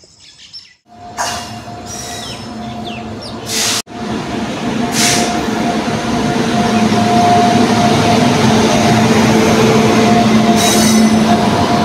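WAG-9 electric locomotive and its ICF coaches rolling into the platform. A dense rumble of wheels on rail carries a steady whine, growing louder as the train draws alongside.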